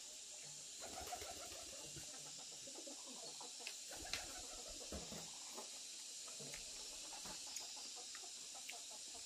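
Faint bird calls with low, repeated cooing over a steady high hiss. A few sharp clicks come from chopsticks against an earthenware bowl, the loudest about four seconds in.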